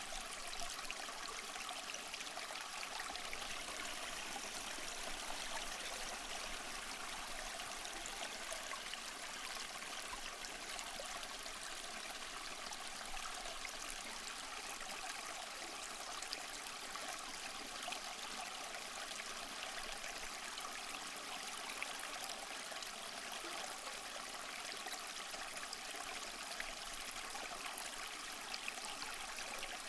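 Small waterfall splashing and trickling steadily, a light, even rush of water without deep rumble.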